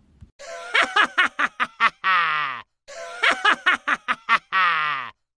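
Canned laughter sound effect, one voice, played twice in a row. Each time it is a quick run of short "ha" pulses ending in a long falling note.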